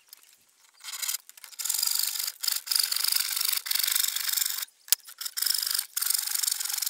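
Hand saw cutting across a laminate flooring plank: rapid rasping strokes that start about a second in and run on with a few brief pauses.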